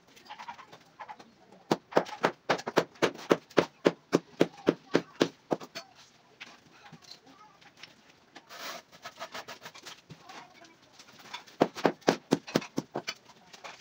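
Rapid sharp taps on concrete hollow-block masonry, about four a second, in two runs: one of about four seconds and a shorter one near the end.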